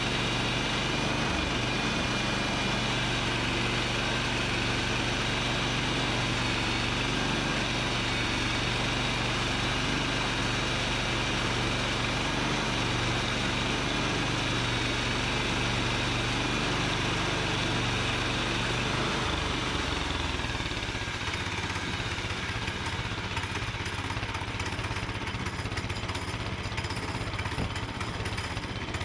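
Sawmill engine running steadily with a low hum; about 20 seconds in the sound changes, the hum dropping away and giving way to a rougher, choppier running.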